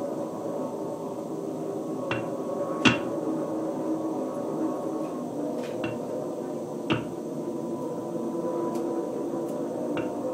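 Live electronic noise music: a dense, steady drone of many held tones, broken by a handful of sharp knocks, the loudest about three seconds in and another about seven seconds in.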